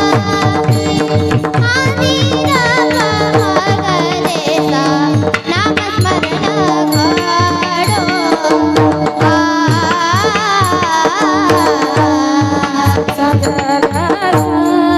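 Marathi devotional kirtan song sung by girls' voices with gliding, ornamented melody lines, over steady held drone notes and a regular tabla beat.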